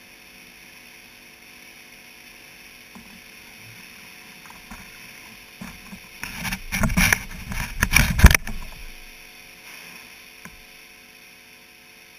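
A halibut thrashing at the surface of its tank, splashing and knocking against the bait-feeding rig in a loud burst of about three seconds, over the steady hum of the tank's pump equipment.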